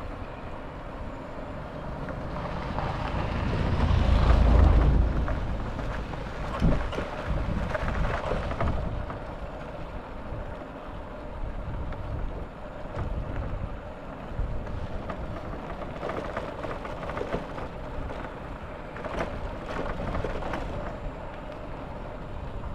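Vehicle running along a jungle road, a steady rumble with a louder low swell that rises and fades about four to five seconds in, and occasional knocks.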